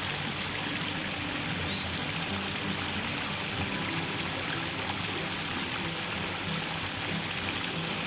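Steady splashing and trickling of water running over the rock cascades of a backyard pondless waterfall into its shallow pools, with soft background music underneath.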